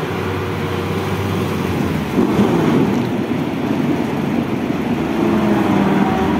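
Heavy diesel truck engine of a loaded bulk cement tanker running under load in soft mud, revving up and getting louder about two seconds in. The tanker carries 56 tonnes against a 26-tonne rating.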